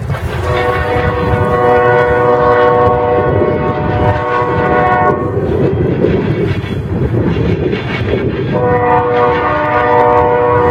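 Locomotive air horn sounding a long blast of several steady tones together, then sounding again from near the end, over the steady rumble of a passing train.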